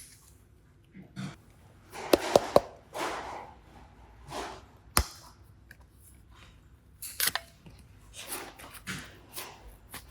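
Hands handling modelling clay and slime: short soft squishing and rustling sounds, with sharp clicks — three in quick succession about two seconds in, one near five seconds, and two more around seven seconds.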